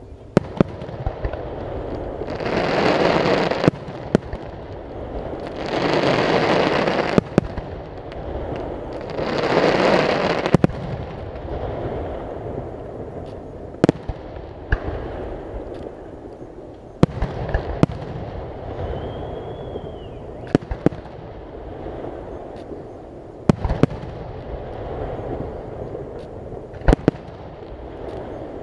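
Aerial fireworks display: sharp bangs of bursting shells at irregular intervals, with three longer rushing swells of sound in the first ten seconds or so.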